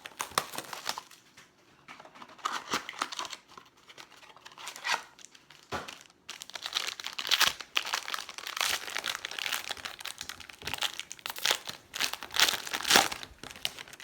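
Plastic pack wrapping on a trading card mini box being torn open and handled, a run of irregular crinkles and tearing rustles.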